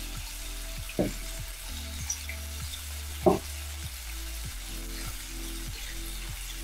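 Capers and swordfish fillets frying in olive oil, a steady sizzle. Two short knocks, about a second in and about three seconds in, from the blender cup being handled.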